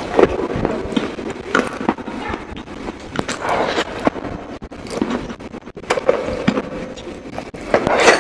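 Close-miked chewing and crunching of chicken wings, with irregular crackly crunches several times a second and a louder crunch near the end.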